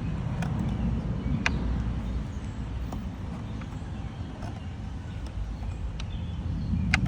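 A few sharp, isolated clicks as screws are backed out of a car's plastic air filter housing and handled, over a steady low rumble.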